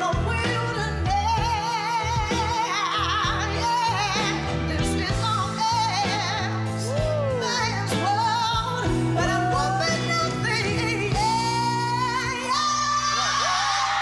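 A woman singing with wide vibrato and quick runs over band accompaniment, holding long notes in the last few seconds.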